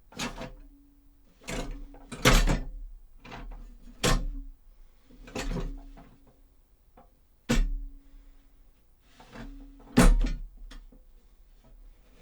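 Foley footsteps on a hollow wooden box, about nine irregular steps roughly a second apart. A cowbell and a metal coaster in the box add a metallic clank and a short ring after many of the steps.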